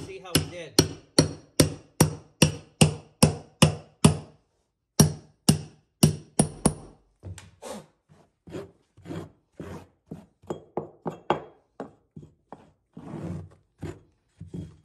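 Hammer striking a carpet tucker in a steady rhythm of about two and a half blows a second, driving the stair runner's carpet into the joint between tread and riser. After a short pause about four seconds in, the blows resume, then turn to lighter, sparser taps through the second half.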